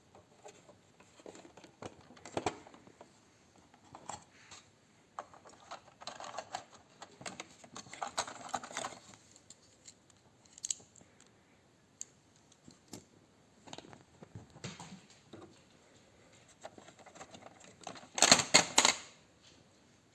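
Scattered clicks and rattles of small hard objects being handled, with a louder burst of clattering near the end.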